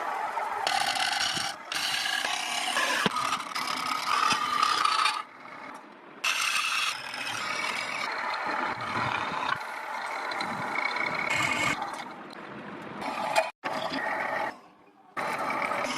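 Woodworking tools at work: mechanical scraping and machining, in several short stretches that cut off abruptly.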